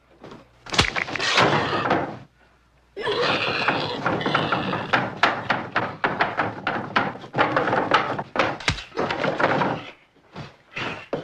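Film sound effects: a sharp heavy blow about a second in, then a busy run of thuds, knocks and scraping, with a loud, deep slam of a heavy door near the end.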